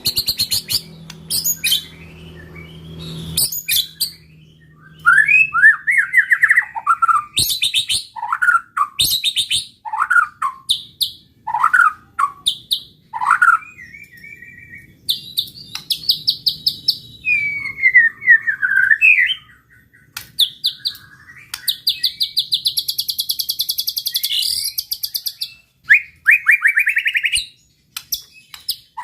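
White-rumped shama (murai batu) singing a long, varied song: whistled phrases that slide up and down in pitch, mixed with fast, high rattling trills and chatters, separated by short pauses. A faint low hum lies under the first few seconds.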